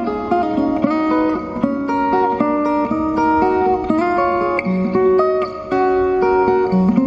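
Solo acoustic guitar played fingerstyle: a picked melody over bass notes, with several notes ringing together.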